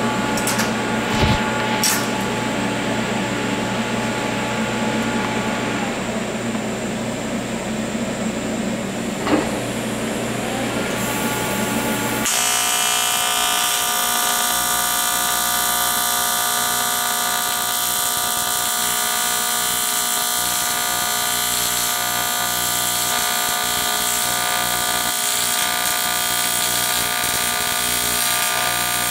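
TIG welding arc on aluminium: after a steady hum with a few clicks, a louder steady buzz with a hiss sets in abruptly about twelve seconds in and holds while the bead is run.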